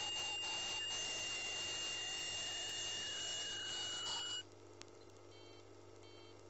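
Sirona PerioScan ultrasonic scaler running, a steady high whine with hiss as its vibrating tip works along a tooth root under water. It cuts off suddenly about four and a half seconds in, leaving only a faint low hum.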